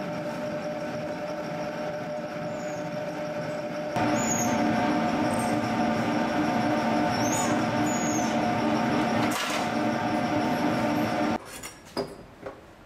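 Clay pug mill (extruding machine) running with a steady mechanical hum, growing louder about four seconds in. Near the end the hum gives way to a few light knocks.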